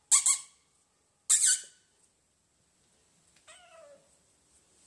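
Tabby kitten making three short, sharp squeaks in the first second and a half, then a soft meow that falls in pitch about three and a half seconds in.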